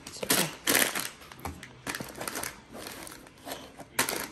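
Rustling and light knocking of plastic containers and packaging being handled and packed into a lunch box, in irregular bursts, the loudest about half a second in and again near the end.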